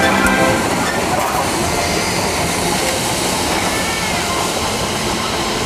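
Harz narrow-gauge steam locomotive 99 7240-7, a 2-10-2 tank engine, rolling past at low speed. Its wheels and running gear make a steady noise on the rails.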